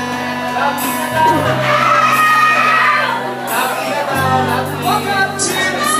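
A man singing into a handheld microphone over a backing track, his voice coming through a PA. Under the voice the backing has long held bass notes that change a few times.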